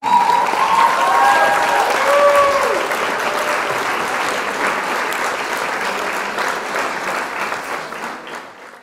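Crowd applauding and cheering, with a few cheering calls standing out in the first three seconds; the applause fades out near the end.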